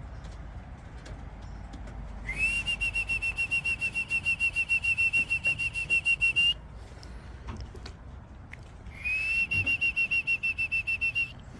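A whistle blown in two long, fast-trilling blasts, the first about four seconds and the second shorter, each rising briefly at its start and then holding one high pitch.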